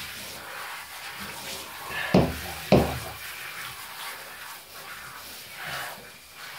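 Handheld shower spraying water onto a wet cat in a bathtub, a steady low hiss. Two sharp thumps about half a second apart, a little after two seconds in, stand out as the loudest sounds.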